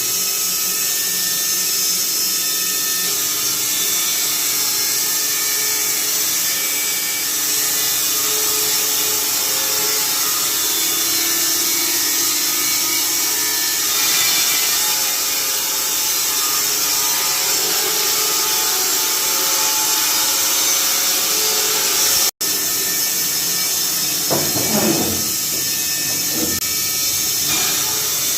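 Carpathian SMFA 100 automatic horizontal band sawmill running steadily, its band blade sawing through a fir log, with the machine's hum and hiss underneath. The sound drops out for an instant about three-quarters of the way through.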